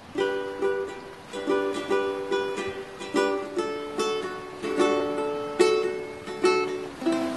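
Ukulele strummed in chords, a string of strokes each ringing and fading, with the chord changing several times.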